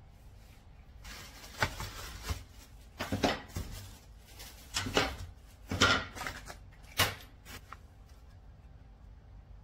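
Plastic-wrapped wooden furniture parts being handled on cardboard packaging: the plastic wrap rustles and crinkles in several bursts, with a few sharp knocks of wood on cardboard. The sounds die away a little before the end.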